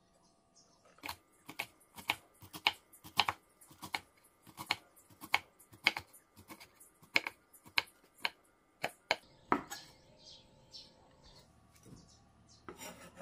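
Kitchen knife chopping boiled bracken fern stems on a wooden cutting board: sharp knocks about two a second, stopping about ten seconds in.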